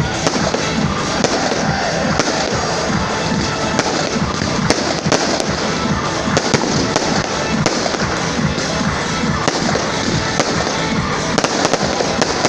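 Fireworks display: a continuous run of rapid bangs and crackles from bursting shells, with music playing underneath.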